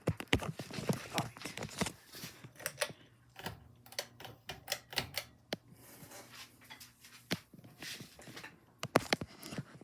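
A run of irregular sharp clicks and light knocks, over a faint steady low hum.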